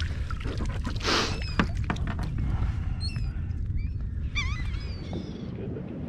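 Seabirds calling overhead in short, rising-and-falling cries, many of them from about three seconds in, over a steady low rumble. About a second in there is a splash as the hooked redfish thrashes at the surface beside the kayak.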